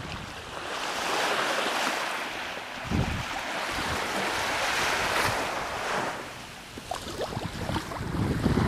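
Sea surf washing in, rising and falling in swells, with wind buffeting the microphone in low gusts, strongest near the end.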